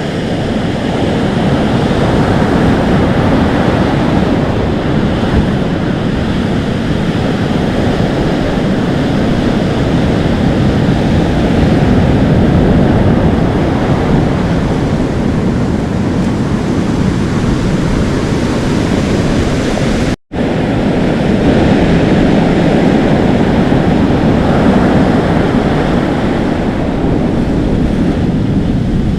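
Atlantic Ocean surf washing in and foaming, a steady rushing noise with wind on the microphone. The sound cuts out abruptly for a split second about two-thirds of the way through, then resumes.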